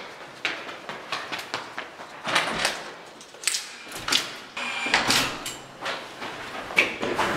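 Quick footsteps on a hard corridor floor, about three a second, with a glass door being opened and passed through around halfway.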